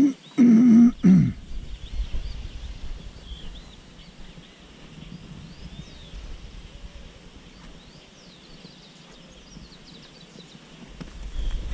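A short low voice, held then falling in pitch, in the first second and a half, then small birds chirping over a low rumble of wind on the microphone, the rumble growing near the end.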